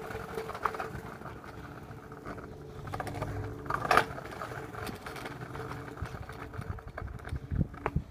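Kick scooter rolling over pavement: a steady rumble and rattle from the wheels and deck, with a few sharp knocks, the loudest about four seconds in.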